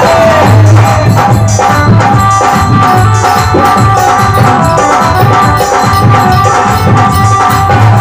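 Instrumental passage of a live bhajan: harmonium and keyboard hold a melody over a steady dholak beat, with small hand percussion clicking along.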